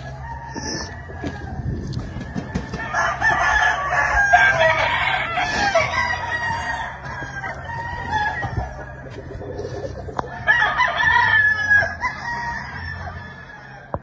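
Gamefowl roosters crowing across the yard, with a long bout of overlapping crows a few seconds in and another about two-thirds of the way through, and some clucking between.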